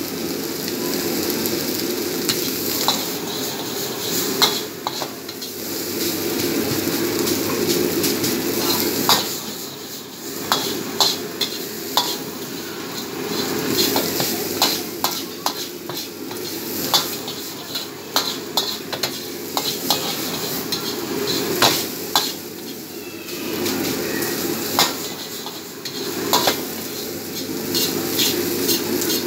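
Fried rice sizzling in a wok while a metal wok ladle stirs and tosses it, with repeated clanks and scrapes of the ladle against the pan.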